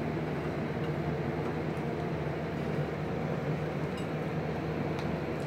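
Steady mechanical room hum with a low drone, and a couple of faint light clicks about four and five seconds in as the plastic burette is handled on the glass bottle's neck.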